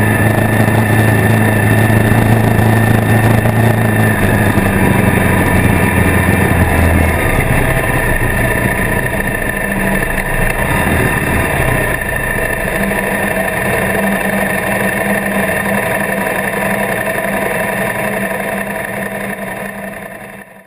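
Motorcycle engine running on the move, heard from a camera mounted on the bike, with steady wind and road noise. Its deep low note eases off about five to seven seconds in, and the sound fades out at the end.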